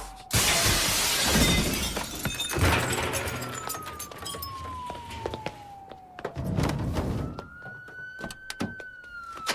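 Police car siren wailing in long, slow falls and rises over a car chase, with loud crashes and thuds as plastic drums are knocked about near the start and again about two-thirds of the way through.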